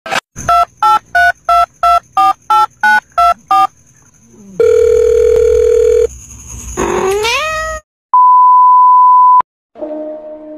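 A quick run of about eleven touch-tone phone keypad beeps, followed by a steady low telephone-style tone lasting about a second and a half. Then comes a cat's rising meow and a long flat beep, and a sustained musical chord begins near the end.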